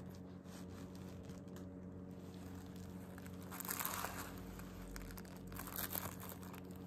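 Soft rustling and crinkling of tissue-paper wrapping and fabric being handled, in two brief spells, one about three and a half seconds in and one near the end, over a steady low hum.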